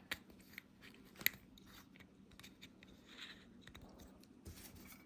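Faint small clicks and rubbing from handling a Zippo lighter while the new flint is fitted, with one sharper click a little over a second in.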